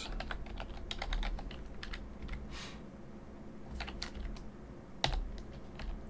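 Typing on a computer keyboard: a quick run of key clicks for the first two seconds, then scattered single keystrokes, the loudest about five seconds in.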